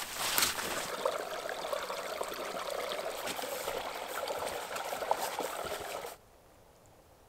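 Meltwater stream trickling steadily, with conifer branches brushing and crackling past in the first moment; the sound cuts off abruptly about six seconds in.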